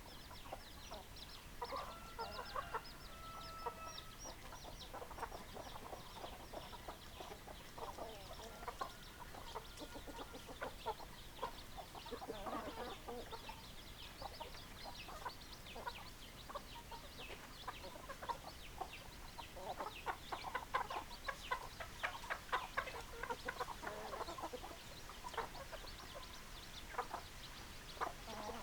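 A flock of chickens clucking continuously in many short calls, with a longer held call about two seconds in. The calling is busiest about two-thirds of the way through.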